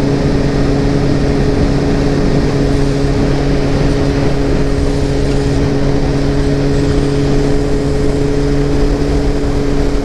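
Motorcycle engine running at a steady cruising speed, its pitch holding level, under a constant rush of wind and road noise.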